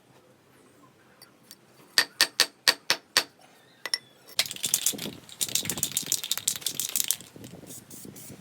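Six quick, sharp taps of hard objects striking each other, then a few seconds of fast rattling clatter.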